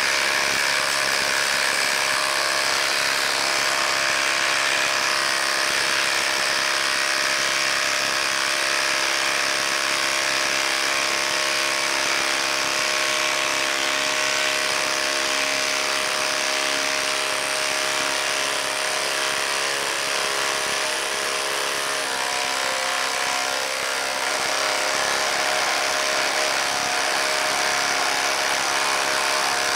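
Ryobi cordless impact driver hammering continuously as it drives a long lag screw into a wooden log round through a socket, the socket skipping on the screw head. The steady rattling hum shifts slightly in pitch a little over two-thirds of the way through.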